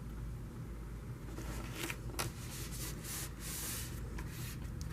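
Faint rustling and rubbing of cardstock being handled and pressed into place, with a couple of light taps about two seconds in.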